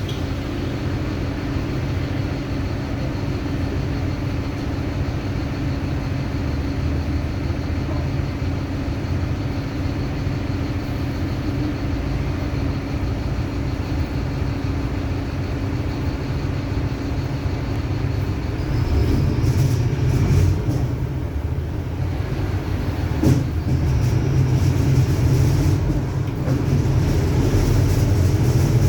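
Mercedes-Benz OF-1721 BlueTec 5 bus under way, its diesel engine and drivetrain running with a steady low rumble and a droning tone from the differential, which the uploader calls a growling differential. Past the middle the rumble grows louder, and a few knocks follow.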